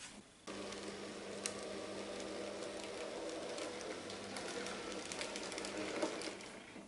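N-scale model train running past on the track: a steady electric-motor hum with wheels clicking over the rail joints. It starts abruptly about half a second in and dies away near the end.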